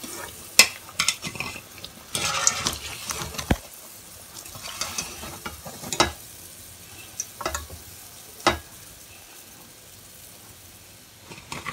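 Balushahi frying in oil in a wok with a sizzle, while a wire-mesh skimmer scrapes and knocks against the metal pan about half a dozen times as the pieces are lifted out.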